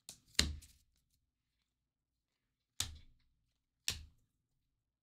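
A stack of trading cards being handled and flipped through: four short, sharp knocks and flicks. The loudest comes about half a second in, and two more come near three and four seconds.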